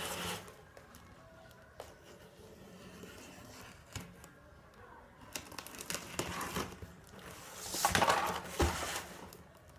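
A taped cardboard shipping box being handled and turned over: cardboard and packing tape rustling, with a few light knocks and a louder burst of rustling about eight seconds in.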